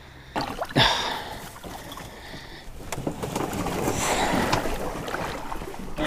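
Water sloshing and splashing close by, with a few light knocks.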